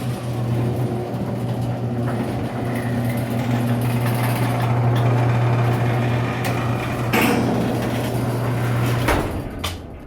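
Electric garage door opener motor running steadily with a low hum as the garage door closes, with a brief louder rattle about seven seconds in. The motor stops about nine seconds in.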